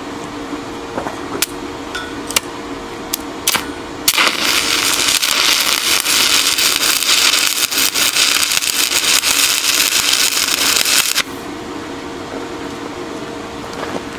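Stick welding arc from an HTP Inverarc 160 Plus inverter welder laying a one-inch tack on a high-strength steel splitting wedge. The arc crackles and sizzles evenly for about seven seconds and then cuts off suddenly. A few sharp clicks come before the arc starts.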